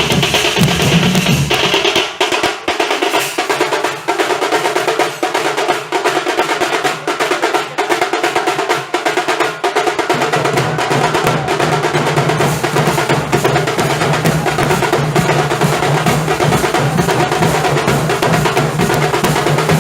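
Nasik dhol ensemble drumming in fast, dense strokes. About two seconds in the deep dhol beats drop out, leaving only the sharper, higher drum strokes. About halfway through the deep dhols come back in under them.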